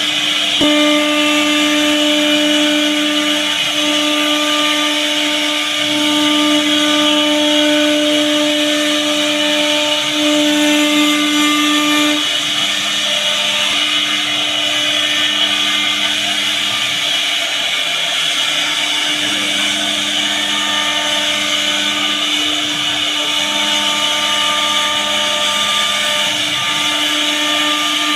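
CNC router spindle running at speed while its bit routes a groove into a solid-wood door panel: a steady whine of several tones over the hiss of the cut, with some tones dropping out and returning partway through.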